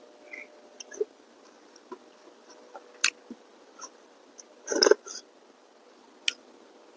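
A person chewing food with mouth smacks and scattered short clicks, with one louder burst about five seconds in.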